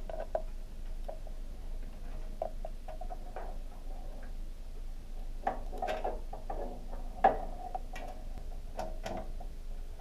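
Scattered light clicks and taps of hands handling cables and parts inside an open computer tower case, with a few sharper clicks in the second half.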